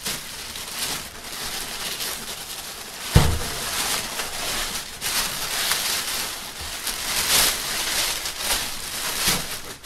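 Large thin plastic bag rustling and crinkling as it is pulled up off a computer case, with a single thump about three seconds in.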